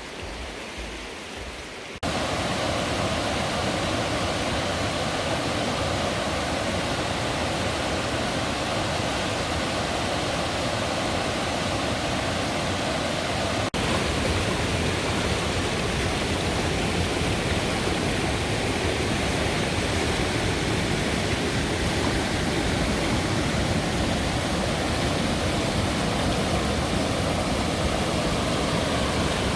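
Rushing water of the Housatonic River, a steady loud roar of rapids that comes in abruptly about two seconds in.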